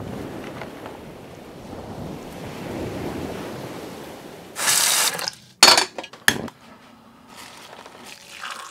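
Small kitchen sounds of making a cup of instant coffee: a faint low background rush, then about halfway a short hiss, followed by two sharp clinks of a metal spoon against a ceramic mug.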